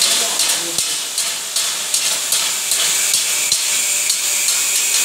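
Stick (shielded metal arc) welding arc crackling and sizzling steadily as the electrode burns at the joint of a flat steel bar and angle iron.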